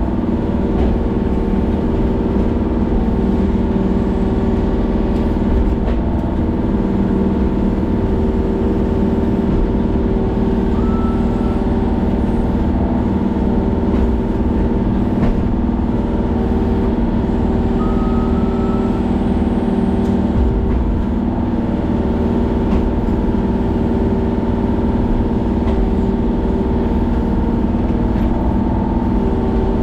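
Kubota mini excavator's diesel engine running steadily as the boom and bucket work a pine stump out of the ground.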